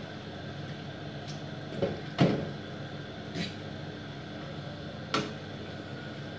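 A cooking utensil knocking and scraping against a non-stick frying pan as tagliatelle is turned through a cream sauce. There are about five short knocks, the loudest about two seconds in.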